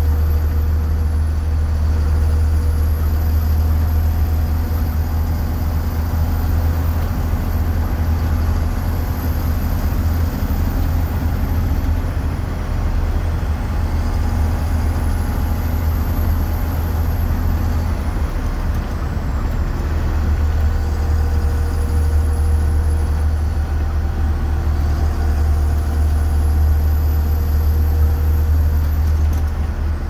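Inside the cab of a 2004 Blue Bird 3800 school bus at cruising speed: its International DT466E straight-six turbo diesel runs steadily under a deep, continuous drone, mixed with road noise.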